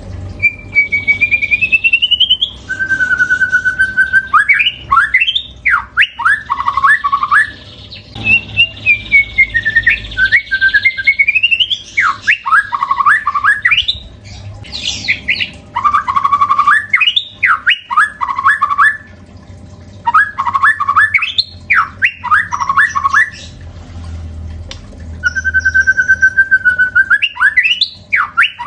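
White-rumped shama singing loudly in repeated phrases: a long whistled glide or a held whistle, followed by a rapid run of sweeping notes, with short pauses between phrases.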